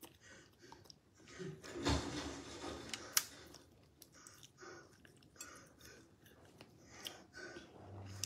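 A person chewing and licking her fingers while eating by hand, with small mouth clicks throughout, a thump about two seconds in and a sharp click about a second later.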